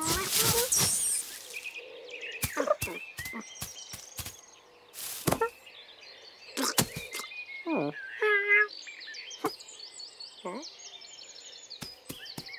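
Cartoon sound effects: a rustle through hay in the first second, then scattered soft knocks and taps, short mews and chirrups from a cat, some sliding down in pitch, and high tweeting from a small bird in the second half.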